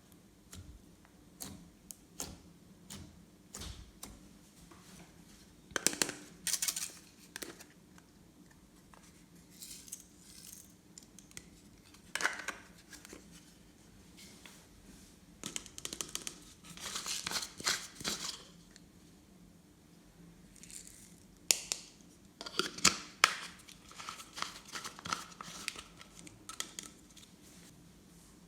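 Slime and small add-ins being worked by hand: scattered sticky clicks, crackles and crinkles, with short busier bursts about six, twelve, seventeen and twenty-three seconds in.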